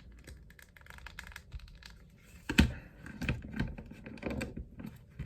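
Small hard plastic toy parts clicking and scraping as a blind-box figure is pushed onto its stand, with one sharp loud click about two and a half seconds in and quicker clicking after it.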